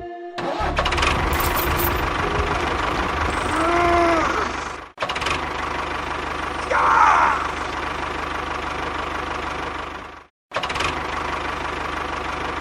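Small engine of a mini tractor running steadily with a rapid knocking pulse. The sound drops out twice, about five and ten seconds in, with a short squeal before the first dropout and a brief louder rasp between them.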